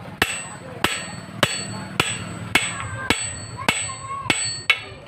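Steady hammer blows on a steel drift punch, about one every 0.6 s, driving the camshaft gear home into a China CD single-cylinder diesel engine's new body. Each strike is a sharp metallic knock with a brief ring.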